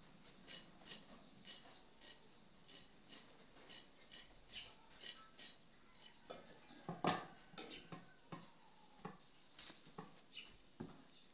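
Food being grated by hand on a flat metal grater: short rasping strokes, about two a second, with a louder knock about seven seconds in.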